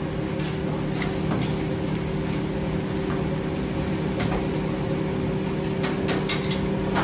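Steady low hum of commercial kitchen machinery, with tortilla chips deep-frying in oil under it and a few light clicks of kitchen utensils.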